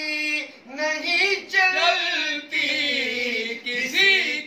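Men singing a naat, an Urdu devotional song, unaccompanied, in high held phrases with short breaks between them.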